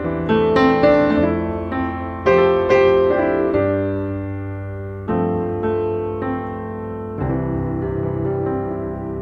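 Background piano music: single notes and chords struck and left to ring over held bass notes.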